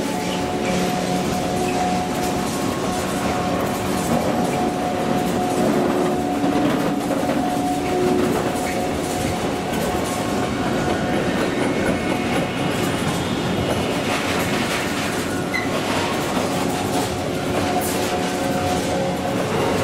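Freight train of tank, car-carrier and hopper wagons rolling past at close range: a steady rumble and clickety-clack of wheels over the rails, with a steady whining tone through the first half.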